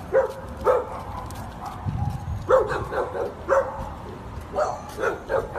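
American Bully dog giving a series of short, high whining yelps, coming in quick groups of two or three.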